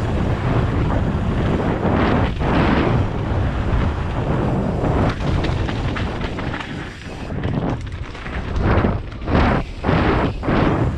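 Wind noise on the microphone of a camera on a mountain bike riding fast down a dirt singletrack, mixed with the noise of tyres on loose dirt and gravel and the rattle of the bike. The noise swells in several short surges near the end.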